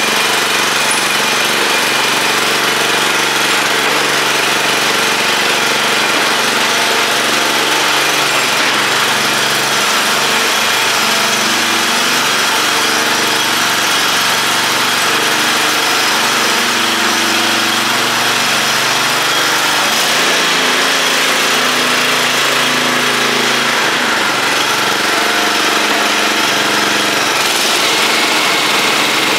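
Small single-cylinder engine of a Cub Cadet CC 800 33-inch walk-behind self-propelled mower running steadily, with no change in speed.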